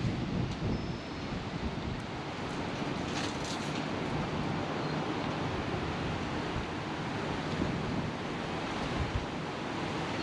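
Steady wind rushing, with gusts buffeting the microphone in an uneven low rumble.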